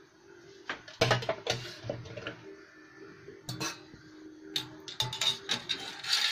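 Wire spider strainer clinking and knocking against a stainless-steel pot and bowl as boiled cauliflower florets are scooped out of the water, in irregular clatters that come thickest near the end. A faint steady hum runs underneath.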